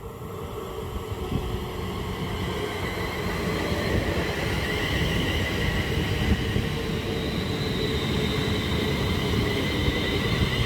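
A pair of Class 350 Desiro electric multiple units running into the station, with wheel and rail noise that builds over the first few seconds and then holds steady, and a faint high whine above it.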